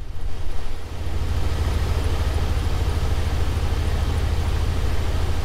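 The 1996 GMC Sierra's 5.0 L V8 idling steadily with an even, low pulse, running on its newly replaced fuel pump.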